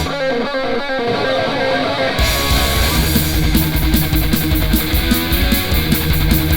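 Heavy metal song: a distorted electric guitar plays a riff alone. About two seconds in, the full band comes in with bass and drums, and fast, driving cymbal strokes follow.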